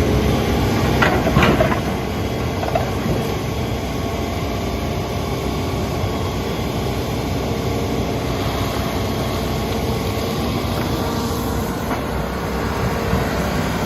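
Hitachi Zaxis 210 excavator running steadily under work, with a few brief, sharp sounds about a second in.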